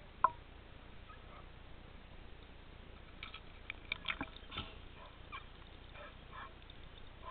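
Water splashing and dripping around the camera as it breaks the surface, heard as a burst of short clicks and knocks about three to five seconds in, with a few fainter splashes after. A single sharp click comes a quarter second in.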